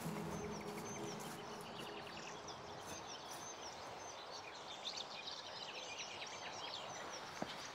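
Woodland ambience: many small birds chirping and singing in quick high calls over a steady outdoor hiss. A held low music chord dies away about a second and a half in.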